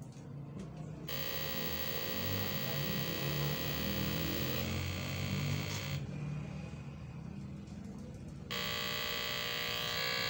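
A steady buzzing tone, rich in overtones, that switches on abruptly about a second in, cuts off at about six seconds, and comes back on near the end.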